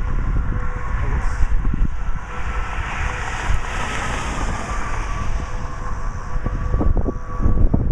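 Strong storm wind buffeting the microphone with a heavy, irregular rumble, and a rushing hiss that swells in the middle and dies away. A faint steady whine runs underneath, with a few short knocks near the end.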